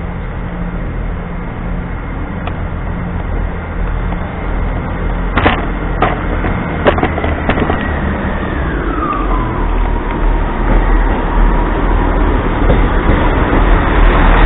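Northern multiple-unit train running into the platform, its low rumble growing louder as it draws alongside, with a whine that slides down in pitch and then holds steady as it slows. A few sharp clicks come about five to seven seconds in.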